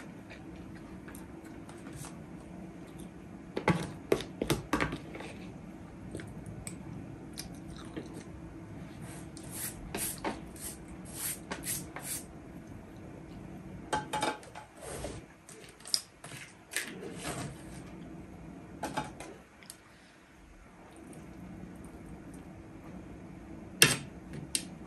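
Metal fork and spoon clinking and scraping against a ceramic plate of biryani as the rice is mixed, in scattered clusters of clicks with one sharp clink about a second before the end, over a steady low hum.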